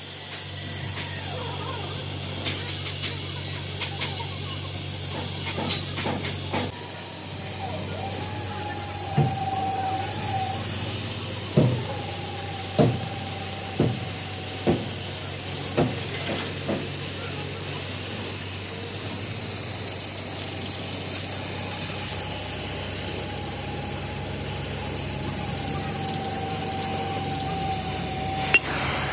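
Metal-workshop noise: a steady hiss over a low machine hum, with a thin whine that comes and goes and about six sharp knocks around the middle.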